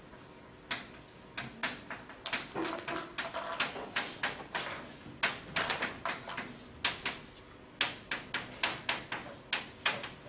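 Chalk writing on a blackboard: a quick, irregular run of sharp taps and short scratching strokes as characters are written, several a second, starting about half a second in.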